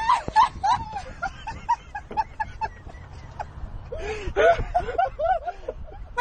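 A person giggling in short, high-pitched, rhythmic bursts, then a second bout of laughter a little after halfway through.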